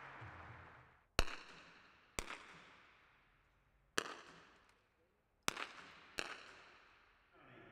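Five .22 rimfire smallbore target rifle shots fired by competitors on the range, irregularly spaced, each a sharp crack with a short echoing tail.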